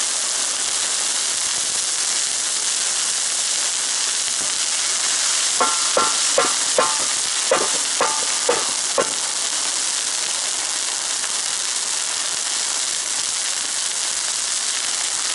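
Water and oil boiling and sizzling on a hot steel saj griddle made from a harrow disc, a steady hiss while the pan is being seasoned. Between about five and nine seconds in, a quick run of short, high-pitched pings sounds over the hiss.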